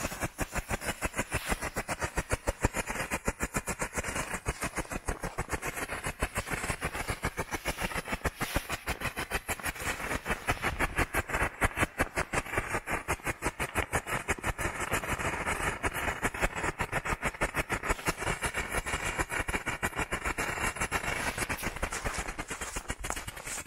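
Ground firework burning in place, giving off a rapid, even run of crackling pops, many to the second, with no let-up.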